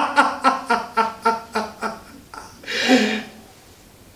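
A man laughing heartily: a run of "ha-ha" pulses, about four a second, that dies away over the first two seconds, followed by a short breathy outbreath about three seconds in.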